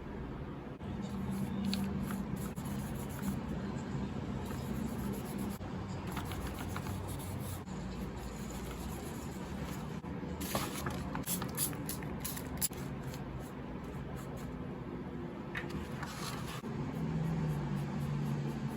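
Paper and craft supplies handled on a work surface: soft scrapes, rustles and light taps, busiest a little past halfway, over a steady low hum.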